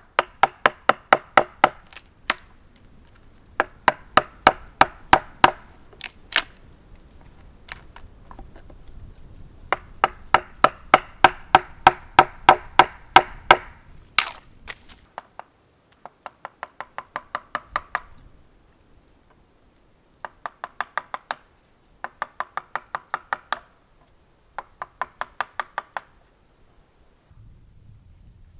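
Knife chopping quickly on a wooden cutting board, about six sharp chops a second, in runs of a few seconds with short pauses between.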